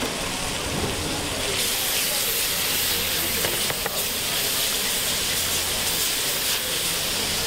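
Cooking cream sizzling hard in a very hot frying pan while being whisked, a steady hiss that grows louder about a second and a half in, with a few light taps of the whisk on the pan.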